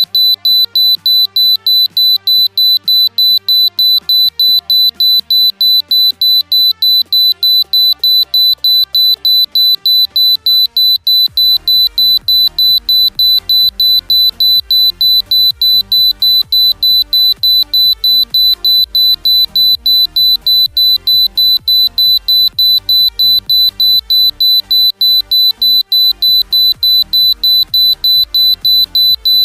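Buzzer driven by a 555 timer circuit, ticking as rapid, evenly spaced high-pitched beeps. Background music plays underneath.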